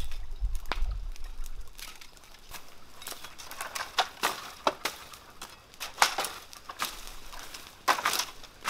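Leafy plants and stalks being pulled up and torn by hand: irregular rustling and crunching with scattered sharp snaps. A low rumble runs under the first second or so.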